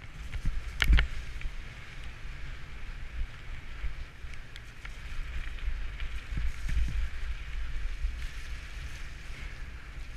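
Bicycle riding over a wet, puddled path: wind buffets the handlebar-mounted camera's microphone as a steady low rumble, with tyre hiss from the wet surface. Two sharp knocks about a second in are the loudest sounds.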